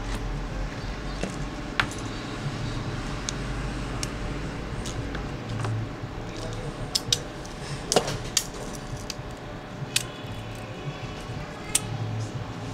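Scattered sharp clicks and taps of small metal tools and iPhone 4 parts being handled during a battery replacement, the loudest about eight seconds in, over a steady low hum.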